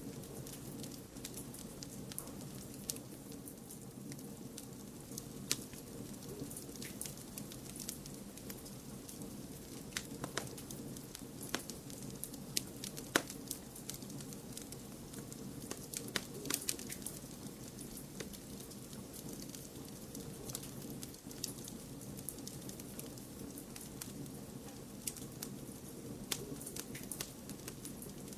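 Wood fire crackling, with irregular sharp pops and snaps over a steady low rumble of noise.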